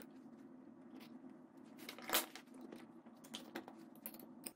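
Faint metallic clicks and scrapes as a titanium bolt, washer and nut are fitted by hand through steel plates, with one louder knock about two seconds in, over a steady low hum.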